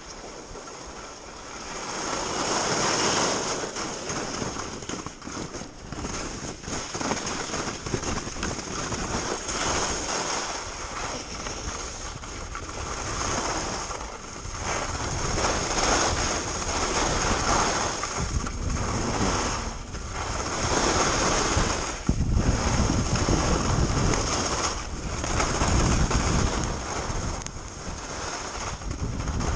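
Skis scraping over packed piste snow mixed with wind rushing over the camera microphone, a steady hiss that swells and fades every few seconds with the skier's turns.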